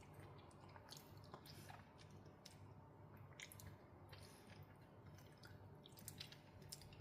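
Faint, wet chewing and squishing of soft, very ripe mango flesh in the mouth, with small irregular clicks.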